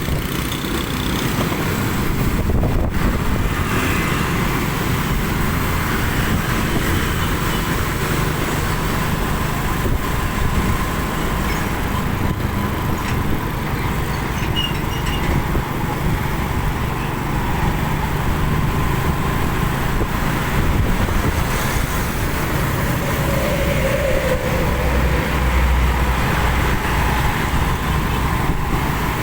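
Vehicle engines and road noise in moving traffic, running steadily; a deeper engine note swells near the end.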